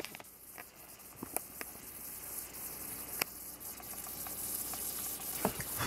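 Faint steady hiss that slowly grows louder, with a few light clicks.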